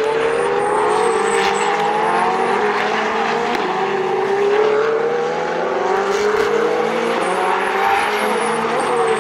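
Ferrari 488 and 458 Challenge race cars lapping the circuit, their V8 engines running loud and steady, the engine notes rising and falling in pitch and overlapping one another.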